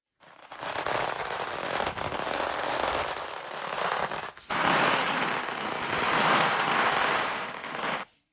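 A string of firecrackers going off in a rapid, continuous crackle, with a short break about four and a half seconds in, then crackling again until it stops abruptly near the end.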